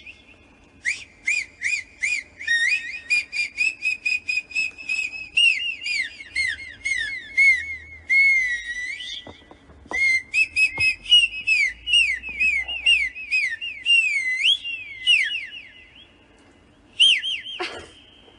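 A trending dog-reaction sound played from a phone speaker: rapid high whistle-like chirps, trills and sliding notes. It pauses briefly about nine seconds in, then comes back, with one more short burst near the end.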